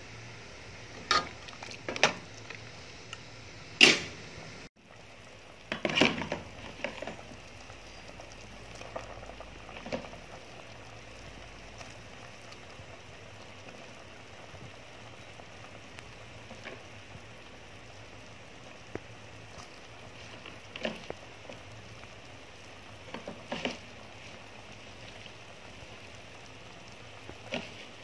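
Pumpkin and pork soup boiling in a steel pot, a steady bubbling hiss. Several sharp knocks in the first few seconds and again around six seconds in are the loudest sounds, with a few fainter ones later on.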